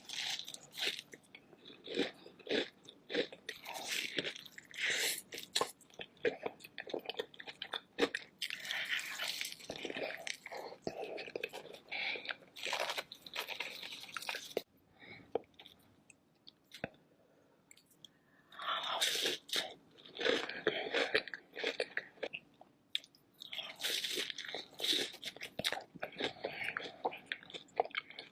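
Close-up eating of king crab: biting, crunching and chewing in quick, irregular bursts, with a quieter pause about halfway through.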